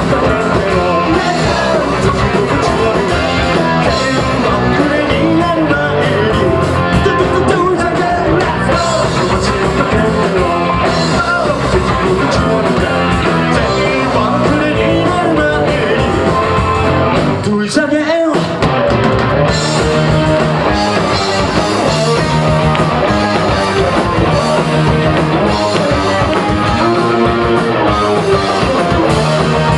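Rock band playing live and loud, with electric guitars, bass, drums and sung vocals. The band stops briefly about two-thirds of the way through, then comes back in.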